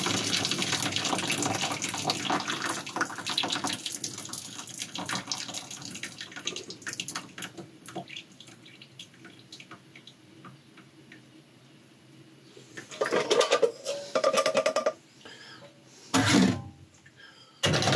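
Hot pasta cooking water poured from a pot through its perforated strainer lid into a stainless-steel sink, a steady splashing stream that thins to a trickle and dies away over about eight seconds. Near the end comes a short louder sound with a ringing tone, then two brief knocks.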